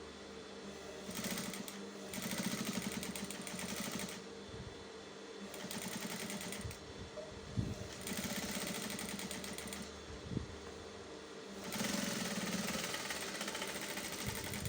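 Electric sewing machine stitching in about five short runs of one to three seconds each, stopping and starting between them, with a few sharp clicks in the pauses.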